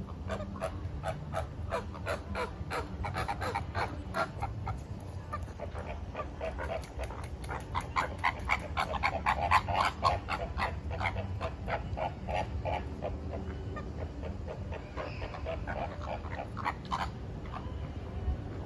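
A flock of flamingos calling: many short, goose-like honks in quick succession, busiest and loudest around the middle, over a steady low background rumble.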